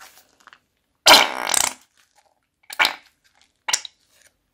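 Thick red liquid slime squeezed out of the cut corner of a plastic bag, spluttering and squelching as trapped air bursts out with it. There is one long splutter about a second in, then two shorter ones.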